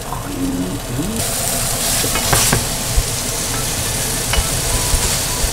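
Flour-dusted, prosciutto-wrapped Spanish mackerel (sawara) sizzling as it fries in olive oil in a frying pan. The sizzle grows louder about a second in as more pieces go into the pan, with a few light clicks in the middle.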